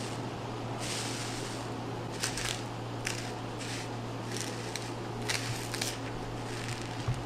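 A series of short, irregular handling noises, scrapes and clicks, over a steady low hum.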